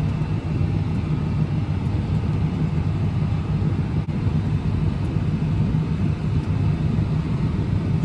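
John Deere 8370RT tractor heard from inside its cab, its engine running steadily under load as the PTO drives the grain cart's unloading auger, which pours wheat into a semi trailer. A low, even drone.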